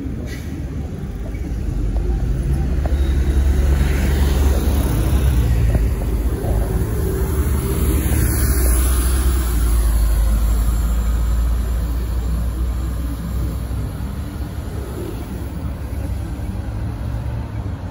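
MAZ-203 city bus engine pulling away from the stop and passing close by: a low rumble that swells about two seconds in, stays loud through the middle, then eases off as the bus moves away.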